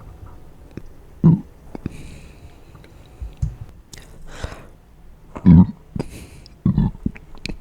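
Three short, low closed-mouth burps, about 1.3 s, 5.5 s and 6.8 s in, with breathing noises between them.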